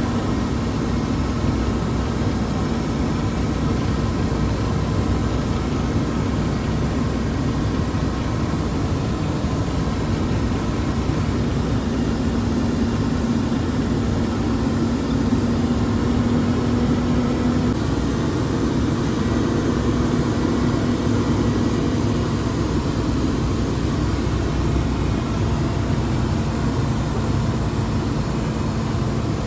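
Heavy truck engine running steadily under load as the truck climbs a steep mountain road, with a steady drone and a hum that weakens about two-thirds of the way through.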